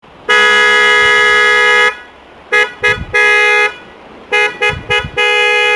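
A pair of 12 V windtone horns on a motorcycle sounding with one steady pitch: a long blast, two short toots, another long blast, three quick toots, then a long blast held on.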